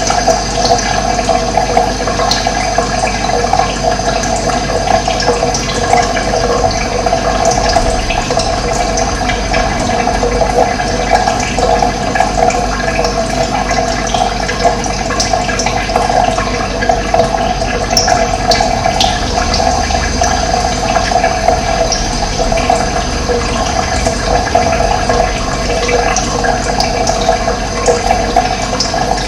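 Running water, a steady rushing and splashing noise, with a few faint high bird chirps here and there.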